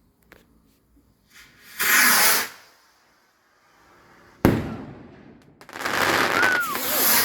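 Fireworks going off: a loud hissing rush about two seconds in, a sharp bang that dies away a couple of seconds later, then another longer hissing rush near the end.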